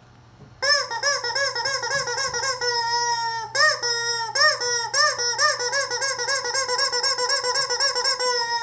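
Rubber chicken squeeze toy squeaking as it is squeezed over and over, about five quick squeaks a second, each rising and falling in pitch, with one longer held squawk about three seconds in.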